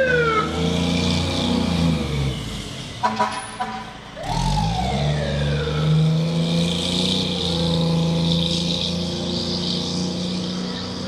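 Fire tower ladder truck's diesel engine running as the rig pulls out and drives off, with siren sweeps falling in pitch at the start and rising then falling about four seconds in, and a short horn blast about three seconds in.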